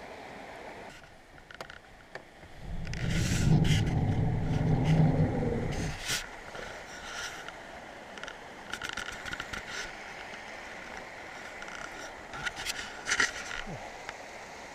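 Stream running steadily. About two and a half seconds in comes a loud low rumble lasting some three seconds, then scattered clicks and scrapes of handling.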